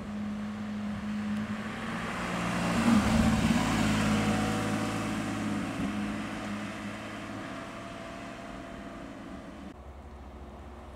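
Porsche Spyder roadster's flat-six engine driving slowly past at low revs, a steady low engine note that swells as the car passes about three seconds in and fades as it pulls away. Near the end a quieter low engine hum from a second approaching Porsche takes over.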